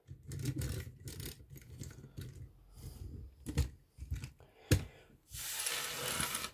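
Plastic LEGO excavator being handled: light clicks and rattles as its upper body is turned on its turntable, with a sharp click just before five seconds in. Then a steady rubbing hiss as a hand slides across the wooden desk toward loose LEGO pieces.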